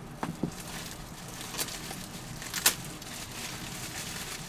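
Plastic bubble wrap rustling and crackling as it is unwrapped by hand, with a few sharp crackles, the loudest a little past halfway.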